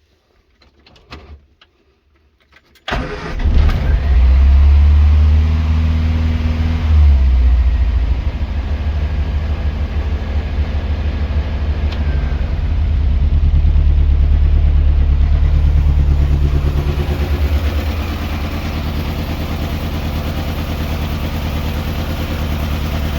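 Morris Minor Traveller's A-series four-cylinder petrol engine catching suddenly about three seconds in, after a few faint clicks. It revs up and down, then runs on at a fast idle. The idle is set right up because the engine has a misfire and would otherwise cut out.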